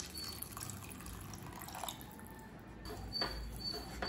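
Water poured from a vessel into a kadai of cooked moong dal, potatoes and peas, faintly trickling and splashing into the liquid, with a few light knocks near the end as a wooden spatula stirs it in.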